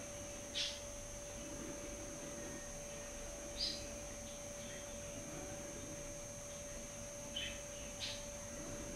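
Small garden songbirds giving short, high chirps, four of them spread through, over a faint steady electrical hum.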